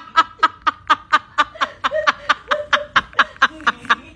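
A person laughing: a long, unbroken run of quick snickering laughs at about four a second.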